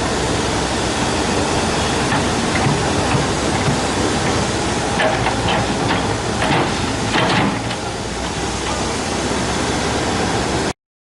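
Komatsu 130F excavator working rock: a steady engine noise with scrapes and knocks of stone about five to seven and a half seconds in. The sound cuts off suddenly near the end.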